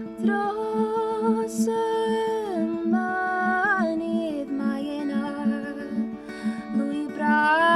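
A woman singing a slow, ornamented folk melody over a guitar picking a steady repeated pattern of about three notes a second.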